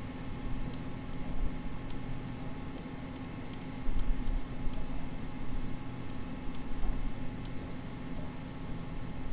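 Computer mouse clicking at uneven intervals, a dozen or so short, sharp clicks, over a steady low hum and hiss.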